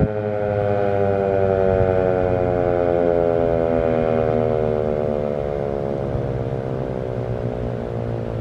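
American Signal RM-130 outdoor warning siren winding down at the end of its steady alert signal: its tone slides slowly and steadily lower in pitch as the rotor spins down.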